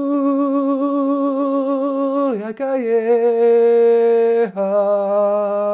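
A man's voice singing long, wordless held notes, stepping down in pitch twice: once about two seconds in and again about four and a half seconds in.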